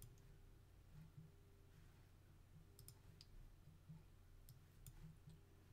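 Near silence with a low steady hum and a few faint computer-mouse clicks, a quick pair about three seconds in and single clicks soon after.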